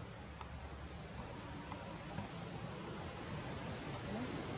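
Steady, high-pitched drone of a tropical forest insect chorus, continuous without a break.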